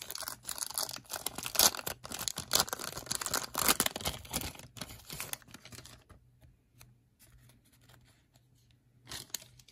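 Plastic wrapper of a 1990 Fleer Premier Edition football card pack being torn open and crinkled for about five seconds, then quieter handling of the cards, with one short crinkle near the end.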